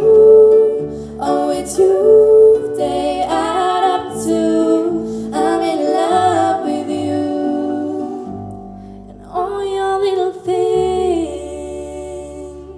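A young woman singing into a microphone to concert harp accompaniment. The voice stops about two seconds before the end while the harp notes ring on and fade.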